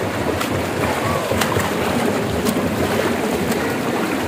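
Swimming-pool water noise: swimmers splashing and churning the water as they swim, with short sharp clicks about once a second.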